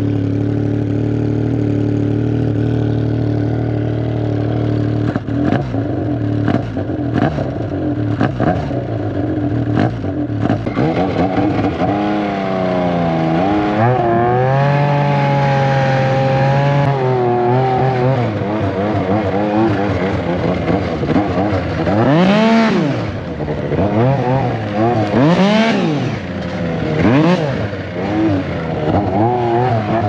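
Yamaha Nitro snowmobile's 1049cc four-stroke triple through a race-can exhaust, idling steadily at first. It then blips the throttle in short sharp bursts and revs up and down several times, with steep climbs to full throttle near the end.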